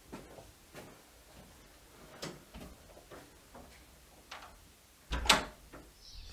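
Scattered footsteps and soft knocks in a small tiled corridor, with a door being handled. A much louder thump with a low rumble comes about five seconds in.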